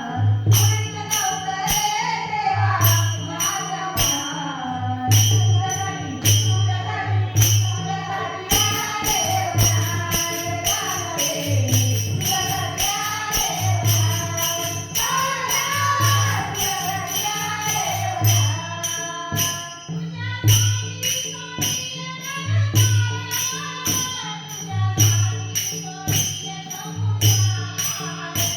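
Marathi gavlan devotional folk song: a singing voice carrying the melody over a steady beat of low hand-drum strokes and jingling, tambourine-like percussion.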